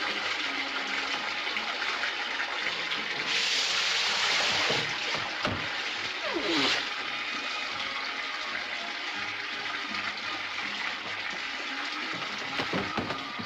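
Water rushing steadily from the plumbing, with a louder surge about three seconds in that lasts a second and a half, and another short surge a little after six seconds.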